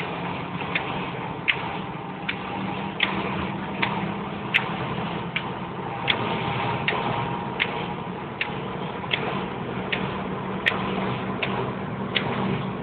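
A car driving, heard from inside the cabin: a steady low running hum with an even tick about every three-quarters of a second.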